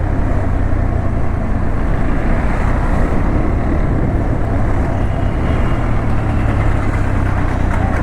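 Motorcycle being ridden at a steady speed: a steady low engine hum under constant wind and road rush.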